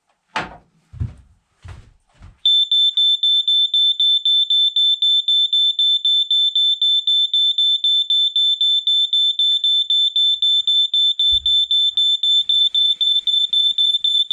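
Firex FX1218 smoke alarm going off: a loud, high-pitched tone pulsing rapidly and evenly. It starts about two seconds in, after a few low knocks.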